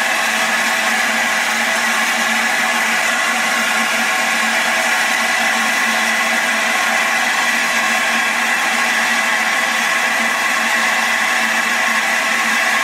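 LNER A4 steam locomotive No. 60007 Sir Nigel Gresley standing with steam hissing from its front end: a loud, even hiss that does not let up.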